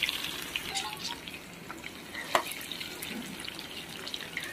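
Sliced onion rings sizzling in hot oil in a pan: a steady hiss dotted with small crackles, and one sharper pop about two seconds in.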